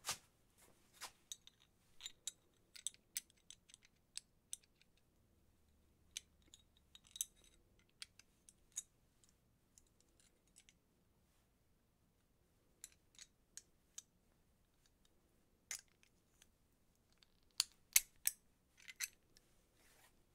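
Scattered faint metallic clicks and ticks of pliers and bolt hardware being handled, with a quiet stretch a little past the middle and a cluster of sharper clicks near the end.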